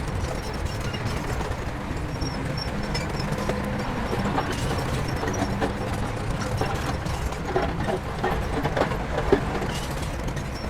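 Heavy construction machinery's diesel engine running steadily, with a few short metallic clanks about eight to nine seconds in.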